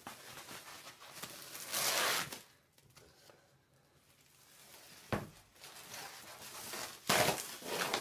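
Thin foam packing sheets rustling as they are peeled off a flat LED ceiling panel, in two loud bursts, about two seconds in and near the end, with a single knock about five seconds in as the panel is handled.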